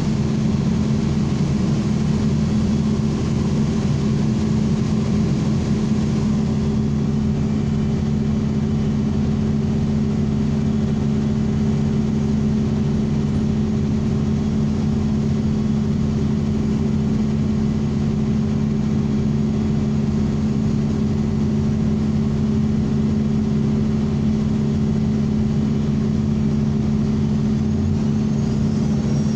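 ElDorado National transit bus running, heard from inside the cabin: a steady engine drone with several low tones under an even rush of road noise.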